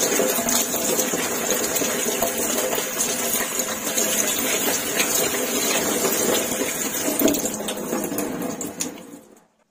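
Tap water running over a head of cabbage being washed by hand and splashing into a stainless steel sink. The water sound is steady, then dies away and cuts off near the end.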